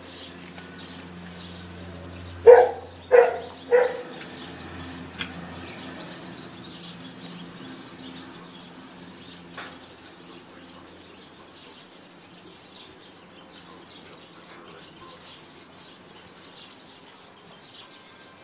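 A duck quacking three times in quick succession, each quack fainter than the last, with small birds chirping in the background.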